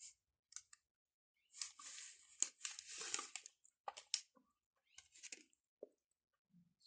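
Cadbury chocolate bar wrapper crinkling and tearing as it is opened, in a dense stretch of about two seconds, with scattered sharp crackles and clicks around it.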